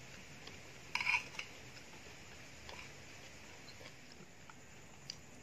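A metal spoon scraping and clinking against a plate as food is scooped up, with one louder clink about a second in and a few faint taps after it.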